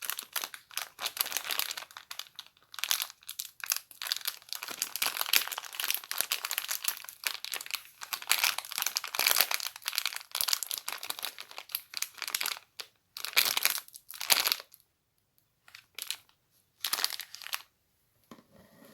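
Crinkly material being rustled and crumpled in continuous crackling bursts. After about fourteen seconds it thins to a few short separate rustles, then stops near the end.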